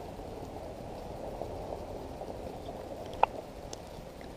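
Quiet outdoor background with a faint steady hiss, and a single short click a little after three seconds in.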